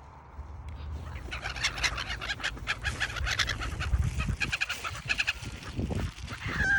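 Birds calling: a rapid run of short, chattering calls for about four seconds, then a single falling call near the end.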